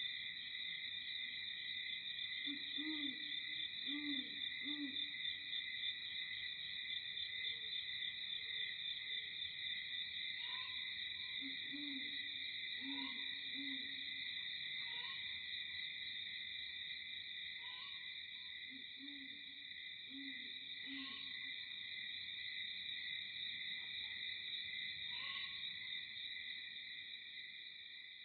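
Night-time nature ambience: a steady, high insect chorus trilling throughout, with an owl hooting in groups of three low notes about a second apart, heard three times. From about ten seconds in, short higher chirps come every two to three seconds.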